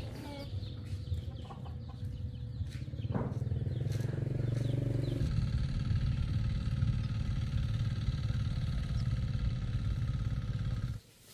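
A vehicle engine running steadily, growing louder about four seconds in as a higher whine joins it, then stopping abruptly near the end.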